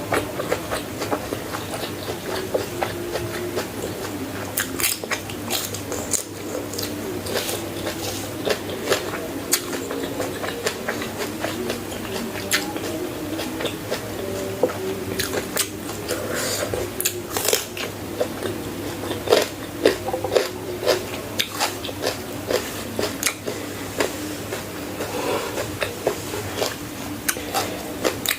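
Close-miked chewing with frequent crisp crunching bites, the sharp crunches coming irregularly every second or so.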